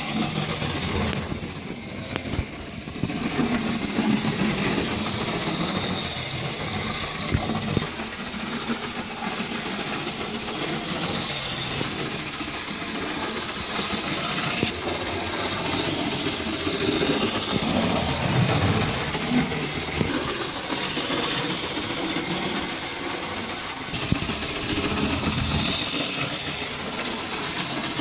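OO gauge Mainline J72 0-6-0T model tank locomotive on a test run: its small electric motor whirring and its wheels running on the track, steady throughout with a few small clicks.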